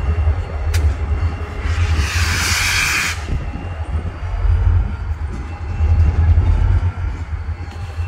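Train in a rail yard: a low, steady rumble throughout, with a sharp click just under a second in and a loud hiss lasting about a second and a half from near two seconds in.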